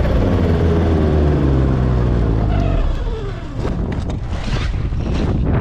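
A motor vehicle's engine running, its pitch sliding down as it eases off about three seconds in. After that, rough wind noise buffets the microphone.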